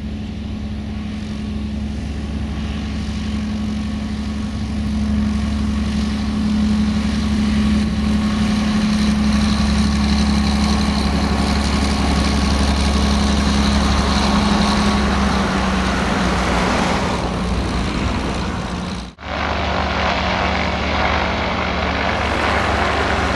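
Light single-engine airplane taxiing: a 1973 Cessna A185F's six-cylinder Continental engine and propeller running steadily at taxi power, its drone dropping slightly in pitch as it passes close by. Near the end the sound drops out for a moment.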